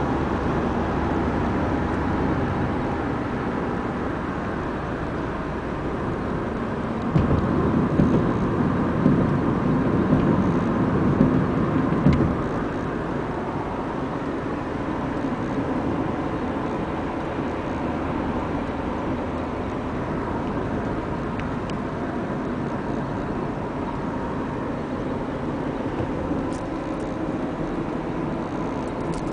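Steady road and engine noise heard inside a moving car at road speed. About a quarter of the way in, a louder, rougher low rumble lasts about five seconds, then the even drone returns.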